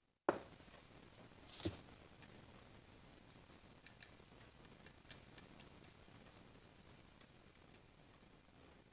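Small metal gun parts being handled and touched up with bluing by hand. There is a knock about a second and a half in, then a scatter of light, sharp clicks and ticks.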